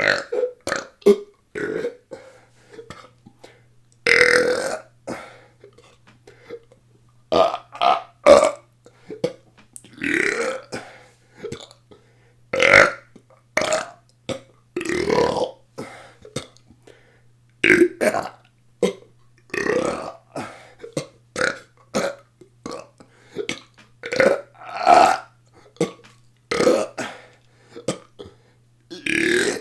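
A person belching on purpose in short, rapid burps, one after another about once a second, a few of them drawn out a little longer.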